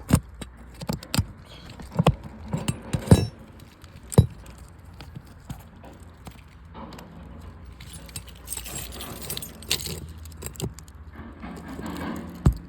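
Sharp metal clinks and taps of a tool working at the roofing nails under a shingle, a cluster of them in the first few seconds, then a stretch of scraping in the middle, and a quick run of strikes near the end.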